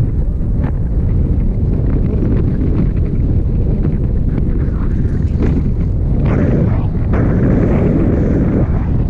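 Loud, steady wind buffeting the camera microphone: the rush of air from the paraglider's forward flight, deep and rumbling, with no engine tone in it.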